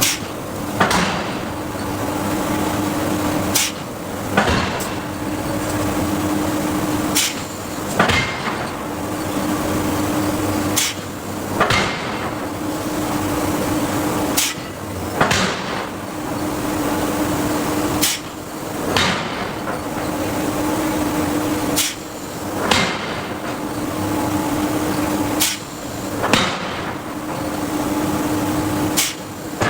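Hydraulic forging hammer striking steel in pairs of heavy blows about a second apart, the pairs repeating every three and a half seconds or so. A steady machine hum runs between the strokes.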